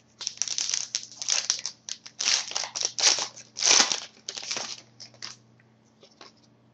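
Wrapper of an Upper Deck SPx hockey card pack crinkling and tearing as it is opened by hand: a run of rustling bursts that dies away about five seconds in.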